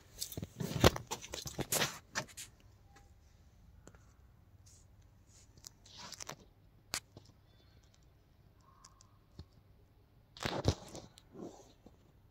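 Irregular scraping, rustling and crackling handling noise, with a few sharp clicks, from a handheld phone moving through a cramped space. There is a dense cluster in the first two seconds and another about ten and a half seconds in, and it is quiet in between.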